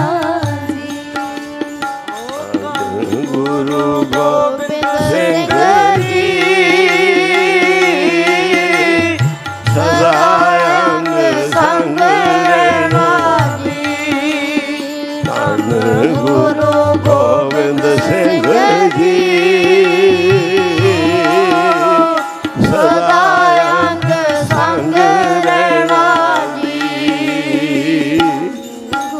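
Sikh devotional kirtan: voices singing a hymn with wavering, drawn-out notes over a held harmonium drone, with tabla accompaniment.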